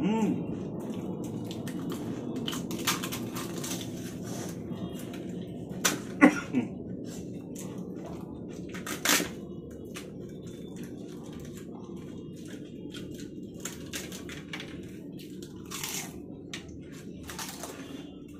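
Fuchka (pani puri) being eaten: crisp fried shells cracking and crunching between the teeth, then wet chewing, with scattered sharp cracks over a steady low background noise.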